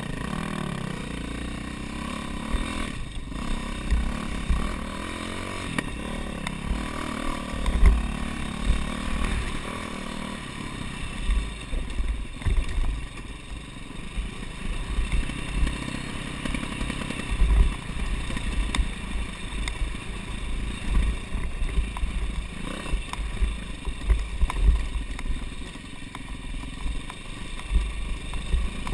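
Dirt bike engine running on and off the throttle as the bike rides down a rough trail, with irregular low thumps and rattles throughout.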